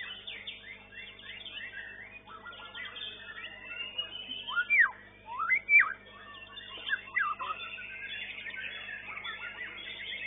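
White-rumped shama (murai batu) singing in a contest cage: a busy run of quick whistled notes, with a few loud, clear up-and-down whistles about halfway through, over a continuous chorus of other competing songbirds and a faint steady hum.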